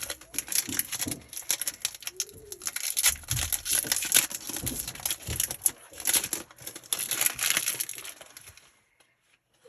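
Foil Pokémon booster pack wrapper crinkling and rustling in quick, irregular crackles as it is handled and pulled open, stopping near the end.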